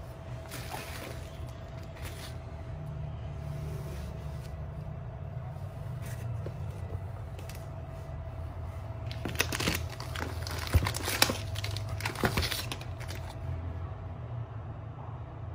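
Plastic packaging crinkling and rustling as phones in bubble wrap and clear plastic sleeves are handled, with a cluster of sharper crackles a little past the middle, over a steady low hum.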